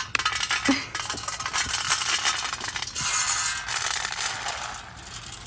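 Goat feed pellets pouring and rattling into a container, a dense stream of small clicks that dips briefly and tails off near the end.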